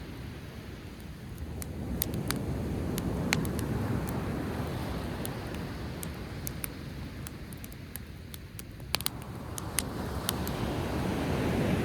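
Driftwood campfire crackling with scattered sharp pops, a quick cluster of them about nine seconds in, over sea waves washing onto the shore, swelling in a few seconds in and again near the end.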